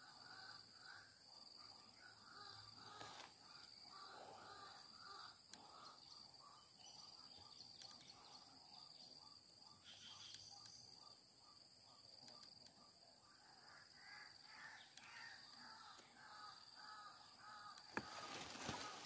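White-breasted waterhen calling in runs of short, harsh repeated notes, about four a second, over a steady high buzz of insects. A single sharp click comes near the end.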